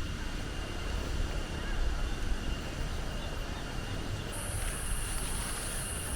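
Strong wind rumbling low on the microphone, with a thin steady high tone throughout. About four seconds in, a steady high-pitched hiss joins in.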